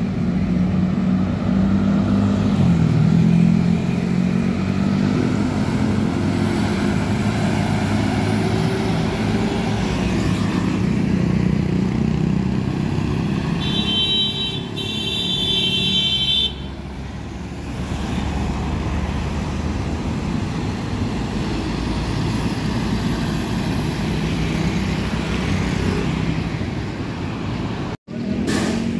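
Road traffic with heavy trucks and motorcycles passing, a steady engine rumble throughout. About halfway through a high steady tone sounds for about three seconds.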